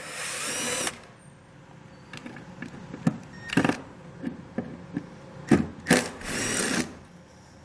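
Cordless drill backing out the Phillips-head tail light screws: a short run of the motor at the start and another about six seconds in. A few sharp clicks fall in between.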